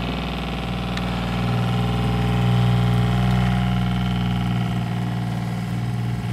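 A boat's freshwater pressure pump running with a steady electric motor hum, pressurising a hose just refitted to it. The hum swells slightly about a second and a half in and then holds.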